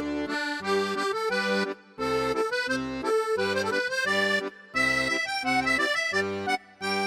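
Background music: a bright instrumental tune over a steady beat of short chords with a low bass note, about two or three chords a second.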